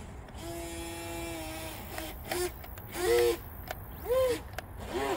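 RC speedboat's brushless outrunner motor whining: a steady whine for about a second and a half, then several short whines that rise and fall in pitch.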